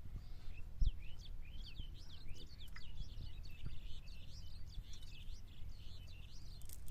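Birds chirping in a rapid, busy run of short high chirps over a steady low rumble, with a brief thump about a second in.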